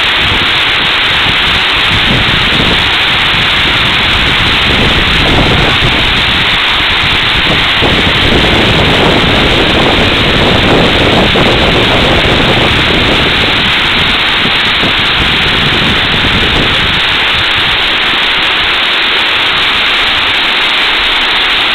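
Water pouring over a small dam's concrete spillway and churning below it: a loud, steady rush, with a deeper rumble that swells for much of the middle stretch.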